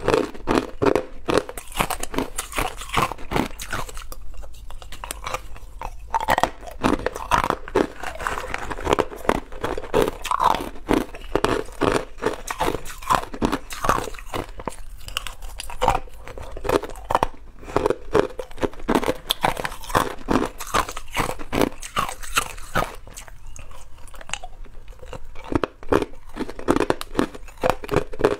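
A person biting and chewing hard chunks of green ice, with dense, irregular crunching and cracking that eases off briefly near the end.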